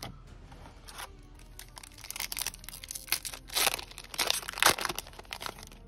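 A foil trading-card booster pack wrapper being torn open and crinkled by hand: a run of crackling rips that starts about two seconds in and is loudest around four to five seconds in.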